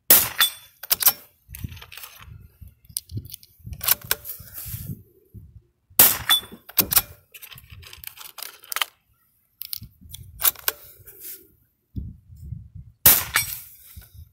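Three .22 LR rifle shots, about six to seven seconds apart, each a sharp crack. After the first two come quick metallic clicks of the action being worked to load the next round, and gusty wind buffets the microphone between shots.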